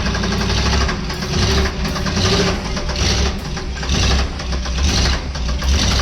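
Freshly swapped, carbureted truck engine running just after its first start-up, its sound swelling and dipping repeatedly. It sounds healthy to the crew.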